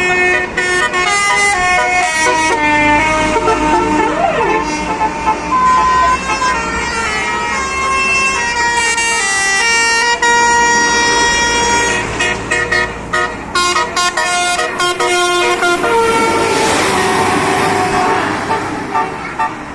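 Bus telolet horn, a roof-mounted Basuri multi-tone air horn, playing a melody of stepped notes with several tones sounding at once, with a brief sliding note about four seconds in. Near the end the notes give way to a rush of noise.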